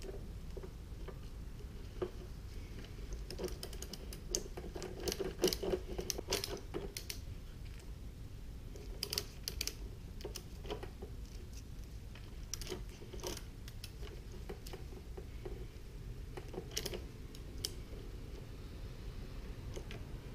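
Socket ratchet clicking in several short runs as a bolt in the motorcycle frame is turned, with light metal clinks of the socket and extension.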